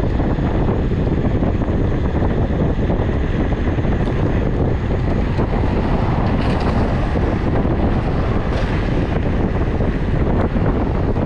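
Steady, loud wind buffeting the microphone of a phone mounted on an electric scooter being ridden.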